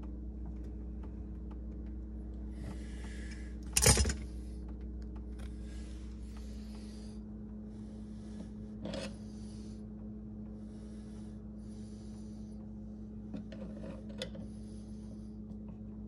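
Hand tools working a sink's metal drain strainer: a flathead screwdriver holds the top part while a wrench tightens the bottom part. There are repeated short bursts of metal scraping and rubbing and one loud clank about four seconds in, over a steady low hum.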